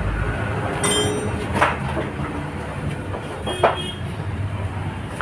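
Scooter frame being straightened in a hydraulic frame press, with metal squealing briefly and two sharp clanks about two seconds apart over a steady low machine hum. The frame is bent so that the handlebars sit too far forward.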